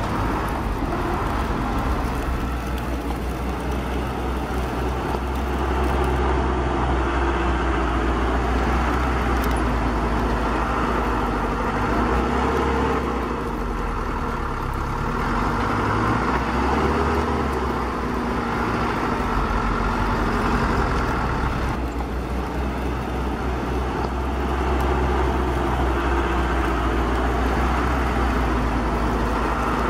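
Radio-controlled tracked dump trucks running: a steady, low engine-like drone with a higher hum over it, swelling and easing a little every few seconds as they move.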